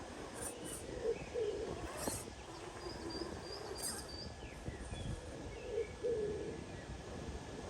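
Birds calling outdoors: low warbling calls repeated a few times, with short high chirps over a steady background rumble.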